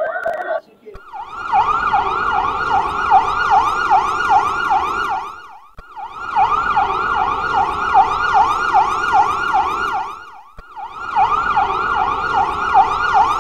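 Emergency-vehicle siren on its fast yelp, a wail rising and falling about four times a second. It starts about a second in and breaks off briefly twice.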